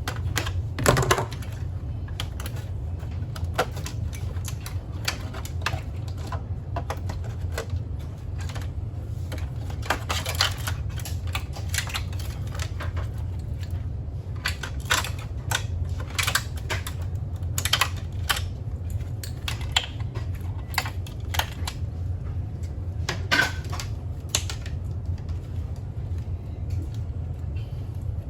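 Irregular clicks and taps, some in quick clusters, over a steady low hum.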